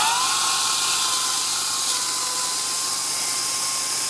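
A power tool's motor spinning up to a steady high whine and running at full speed, dipping slightly once about halfway through.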